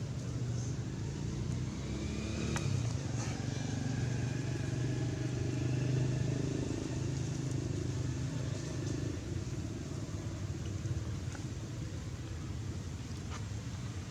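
Low, steady rumble of a motor vehicle passing, swelling towards the middle and easing off.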